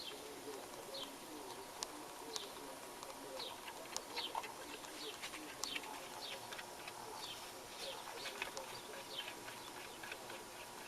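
Onkyo PL-25F turntable running under power with a faint steady hum, while short, high, falling chirps come several times a second at irregular intervals.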